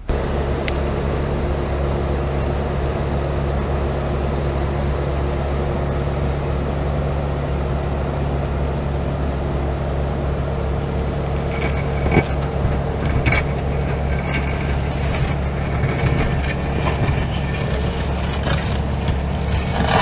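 Engine of the machine drawing a mole plough, running steadily. From about halfway through, irregular cracks and snaps come in as the plough blade cuts through turf and soil.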